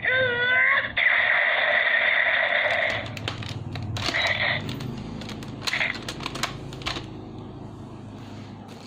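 A DX Gaburevolver toy gun's electronic sound effect through its small speaker, with a wavering warble for about a second and then a steady buzzing tone that cuts off about three seconds in. After that come light plastic clicks and rattles as the toy is handled.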